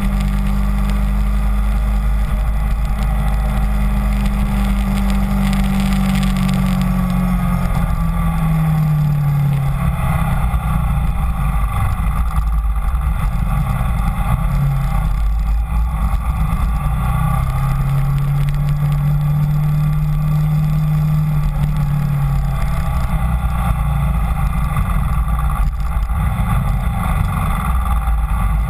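Kawasaki Ninja 250 motorcycle engine running while riding, its pitch rising and falling with the throttle, with steady wind rumble on the bike-mounted microphone.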